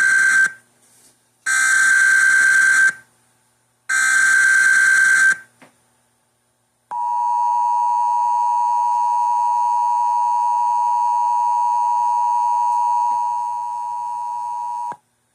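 Emergency Alert System broadcast tones: three harsh, buzzy data bursts of the SAME header, each about a second and a half long, which encode the warning. After a short silence comes the steady attention tone, about eight seconds long, which drops in level near the end and cuts off sharply.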